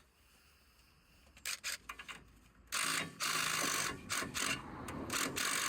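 Impact driver hammering on the top nut of an anti-roll bar drop link to crack it loose. A few light clicks come first, then the driver starts a little under three seconds in and runs on in uneven spurts.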